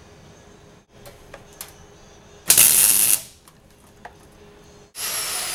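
MIG welder laying one short tack weld about two and a half seconds in: a loud crackling arc that lasts well under a second and cuts off sharply. A few light clicks come before it, and a louder rushing noise starts near the end.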